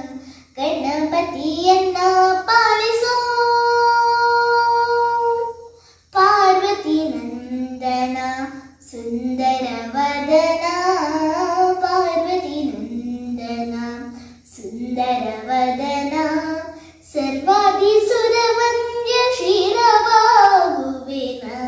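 A young girl singing a Kannada devotional song to Ganesha solo, without accompaniment, in melodic phrases with short breaths between them; she holds one long steady note about three seconds in.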